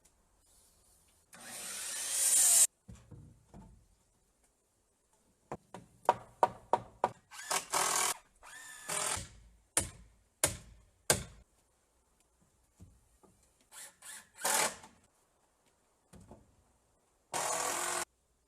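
Carpentry on a wooden floor and frame: several short runs of a power drill driving screws into wood, each cut off abruptly, with a series of sharp knocks between them.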